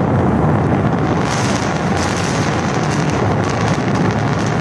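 Distant roar of the Falcon Heavy side boosters' rocket engines during their landing burns: a loud, steady low rumble with a crackle that grows stronger about a second in.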